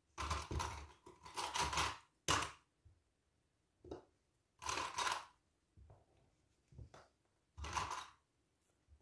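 Fabric rustling in several separate bursts as hands smooth a lining layer flat over minky fabric on a table, with a few short clicks as small plastic sewing clips are handled and fixed to the edge. The longest rustling comes in the first two seconds.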